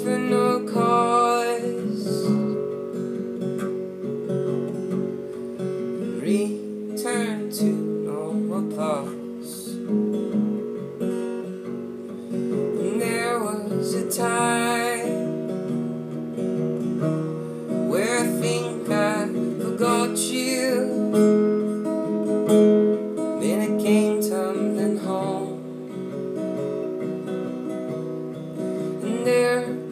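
Acoustic guitar strummed steadily through an instrumental passage of a folk song, joined at times by a few wordless sung glides.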